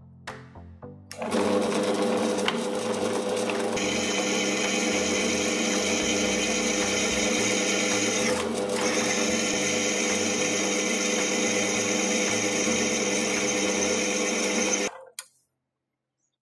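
Drill press running, its twist bit boring through a steel ring. A high cutting squeal joins the steady motor hum about four seconds in, drops out briefly in the middle, and everything stops suddenly near the end.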